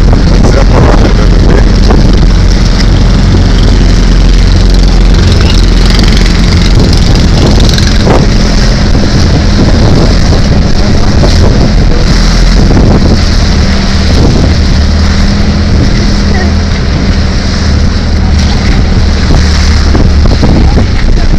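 A boat's engine runs steadily at cruising speed, with wind buffeting the microphone and occasional short knocks of spray or hull against the water.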